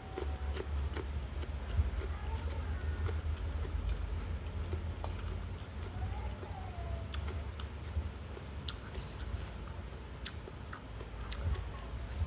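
Close-up eating sounds: chewing with scattered sharp clicks, over a steady low rumble.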